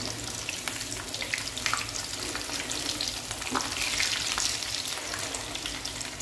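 Breaded shrimp frying in very hot oil in a pan: a steady crackling sizzle with scattered pops.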